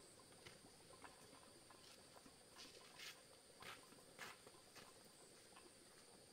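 Faint footsteps of a man in sandals walking on packed dirt, one step a little more than every half second. A steady high insect drone runs underneath.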